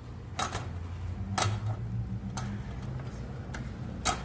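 Sharp metal clicks and knocks, about five spread unevenly, as a panic-bar push bar is fitted back over the lock's tailpiece.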